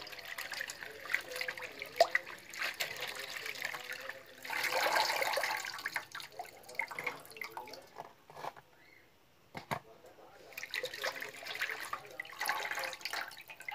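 Jute (saluyot) leaves being washed by hand in a metal basin of water: sloshing, splashing and dripping with small clicks of hands against the basin. It swells to a louder rush of water about five seconds in and goes nearly quiet for a moment around nine seconds.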